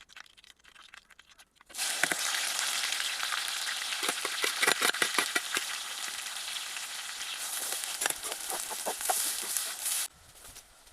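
Chicken frying in hot oil in a pan, sizzling steadily with many sharp crackles and pops. It starts abruptly about two seconds in and cuts off suddenly near the end.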